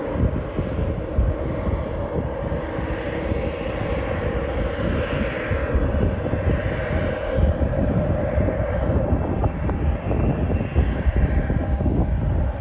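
Passenger aircraft engines running loudly on or over the runway: a steady, deep rumble with a hiss that swells about halfway through.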